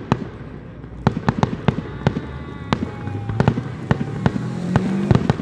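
Fireworks display: aerial shells bursting in a quick series of sharp bangs, some coming in tight clusters.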